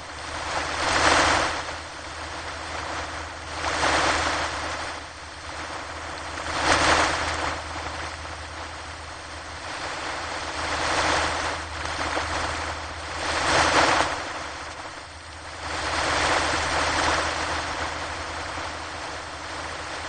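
Ocean surf on a beach: waves break and wash in one after another, the rush swelling and falling every few seconds.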